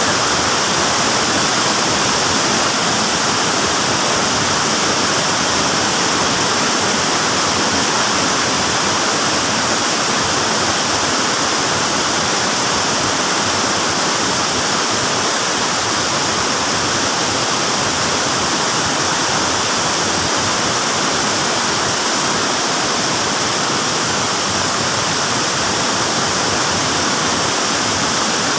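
Waterfall rushing: a steady, loud, unbroken wash of falling water.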